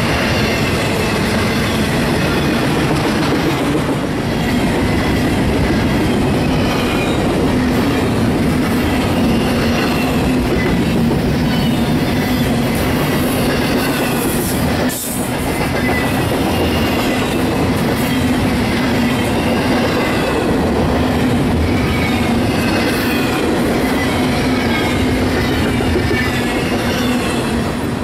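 Double-stack intermodal freight cars rolling past close by: a loud, steady rumble of steel wheels on rail with a clickety-clack over the rail joints. The sound dips briefly about halfway through.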